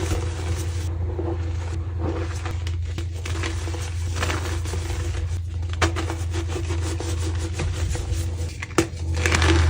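Soft reformed white gym chalk being crushed and crumbled by hand, with dry crackling crunches and scraping, louder near the end, over a steady low hum.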